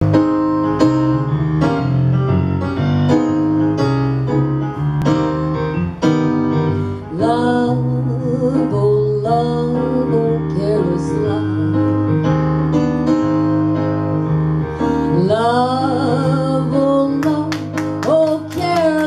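Yamaha S90XS stage keyboard playing a piano sound, a slow introduction of evenly repeated chords. About seven seconds in, a woman's singing voice comes in over the piano, holding long notes that waver in pitch.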